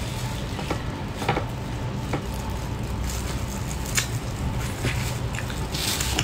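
Wet squishing as a piece of spicy marinated crab is squeezed in a plastic-gloved hand, then chewing as the crab is bitten. Three sharp clicks sound over a steady low hum.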